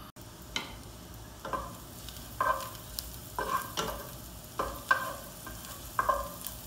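Chopped garlic frying in melted butter in a frying pan, sizzling, while a wooden spatula stirs it with a short scrape against the pan about once a second.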